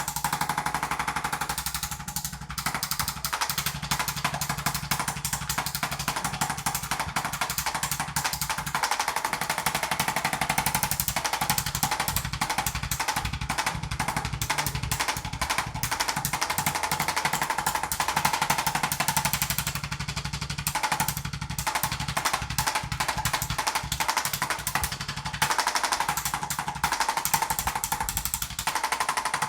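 Handheld motorised percussion device used in a chiropractic treatment, rapidly and steadily tapping in a fast, jackhammer-like pulse with a couple of brief breaks.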